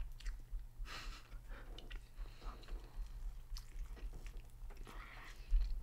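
Close-miked chewing of a soft carnitas taco: wet mouth sounds with small smacks and clicks, over a low steady hum.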